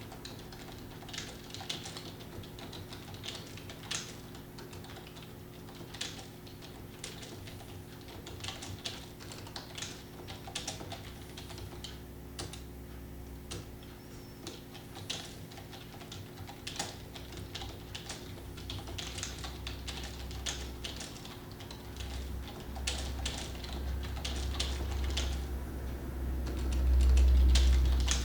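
Computer keyboard keys clicking in quick, irregular runs of continuous typing. A low rumble builds in the second half and is loudest near the end.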